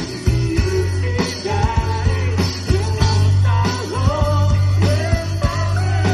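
Live band playing an instrumental passage of a Thai pop-rock song: a lead melody with bending, sliding notes over a steady bass line and drum beats.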